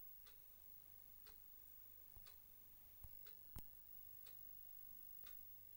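Near silence with a faint clock ticking about once a second, and a few sharper clicks, the loudest about three and a half seconds in.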